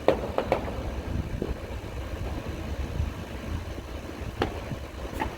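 Scattered firework bangs: two sharp reports close together at the start and two more near the end, over a low steady rumble.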